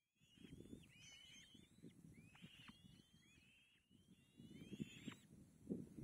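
White-tailed kites calling at the nest: a faint run of thin, high whistled calls, about two a second, each ending in a downward slur. Under them is soft low rustling and scratching as prey is torn apart among the nest twigs.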